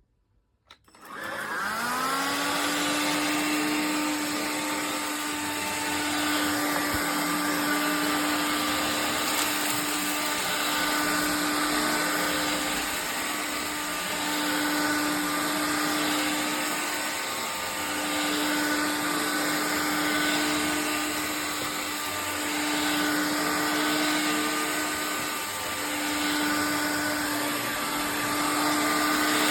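Cordless stick vacuum motor switched on about a second in, spinning up quickly and then running with a steady whine and gentle swells in level.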